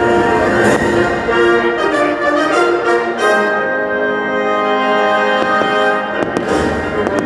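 Orchestral music with brass playing held chords: the patriotic soundtrack of a fireworks show.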